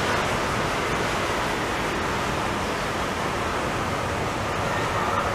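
Taipei Metro train approaching along the track: a steady rushing noise that grows a little louder near the end, where a faint whine comes in.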